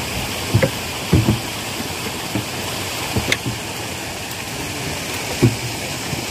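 Steady rushing noise, broken by four or five short knocks as shrimp crates and the iron weights of a hanging beam scale are handled.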